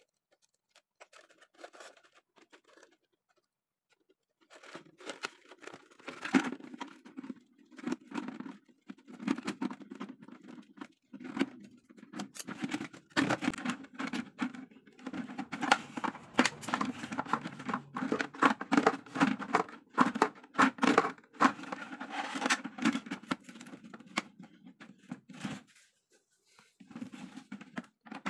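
Thin clear plastic of a cut-up water gallon crackling and crinkling as it is handled and bent, an irregular run of clicks and crackles starting about four seconds in and pausing shortly before the end.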